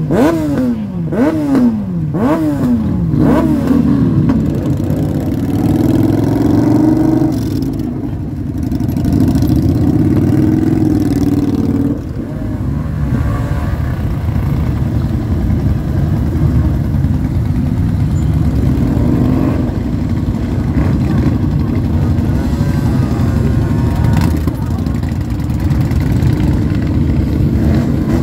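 A parade of motorcycles riding slowly past, their engines running together in a continuous rumble. In the first few seconds one bike is revved about four times in quick succession, each rev climbing and falling away.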